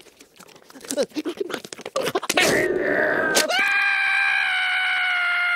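The cartoon sabre-toothed squirrel Scrat: a few short noises, then about halfway through a rough cry that turns into one long, loud scream held at a steady pitch.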